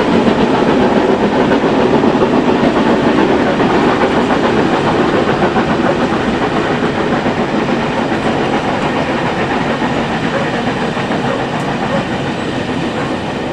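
A long train of passenger coaches rolling past, with steady wheel-and-rail noise that slowly fades as the last coach goes by near the end.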